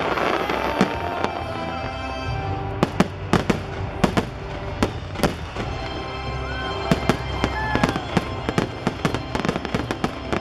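Fireworks going off in irregular sharp bangs, coming thicker and faster toward the end, over a fireworks show's music soundtrack.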